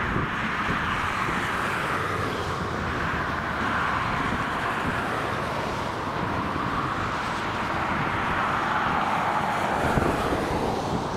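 Steady rushing jet noise from the IAE V2500 turbofans of an Airbus A320-232 on final approach, building slowly as the airliner comes closer.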